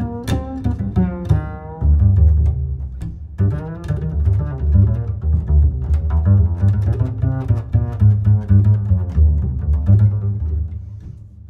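Background music with a strong, deep bass line and changing melodic notes above it.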